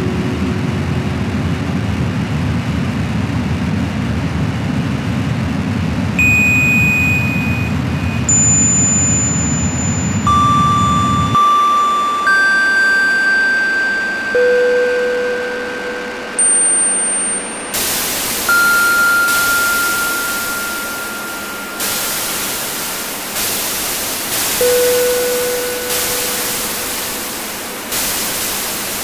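Electronic noise music: a dense band of low, filtered noise cuts off about eleven seconds in and gives way to a thinner full-range hiss. Pure sine tones at different pitches sound one after another and fade. The loudness jumps up and dies away again about every one to two seconds.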